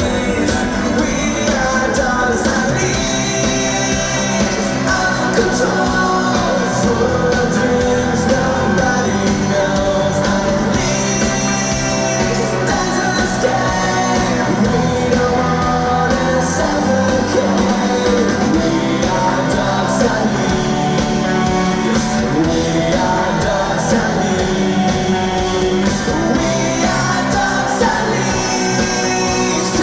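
Live rock band playing a song at a concert, with a male lead singer singing over the amplified band.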